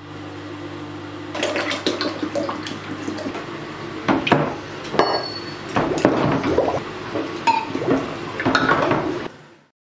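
Water sloshing and splashing in a plastic tub as rusty steel shock absorber parts and a coil spring are stirred about with tongs in a rust-remover bath. The metal parts clink sharply against each other about five times.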